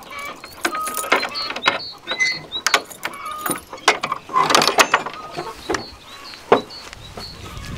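A metal padlock and door hasp rattling and clicking as a key is worked in the lock, then a wooden door being pulled open, with one sharp knock near the end.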